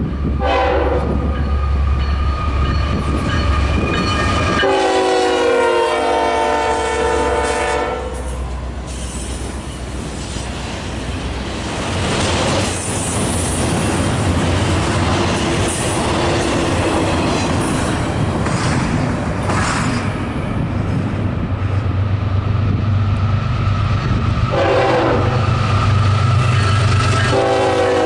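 A passing train with its locomotive air horn sounding: one long blast of about three and a half seconds about five seconds in, then a short blast and the start of another near the end. Between the blasts come the steady rumble of the train and the clatter of wheels on rail.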